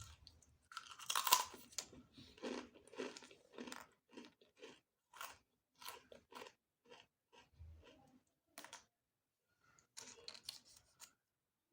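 Close-miked crunchy eating: a loud crunching bite about a second in, then steady crisp chewing at about two to three chews a second, pausing briefly before a last few chews near the end.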